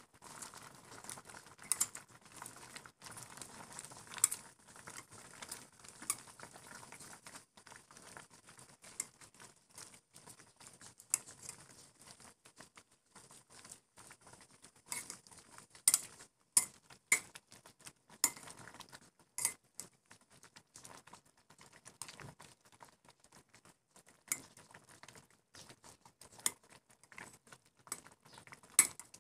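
Metal ladle clinking and scraping against a stainless steel pot as kangkong leaves are pushed down into the soup: scattered light clinks, with a cluster of louder ones around the middle and another near the end.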